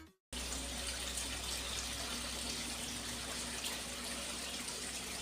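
Steady rush of running water with a low hum underneath, starting after a brief silence.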